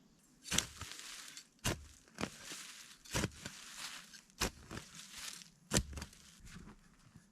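Crunching and cracking of dry wood and snow as a person works through the forest floor: about six sharp snaps spread over several seconds, with rougher crunching between them.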